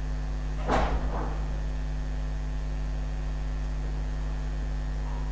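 Steady electrical mains hum picked up on the recording microphone, with a brief soft noise about a second in.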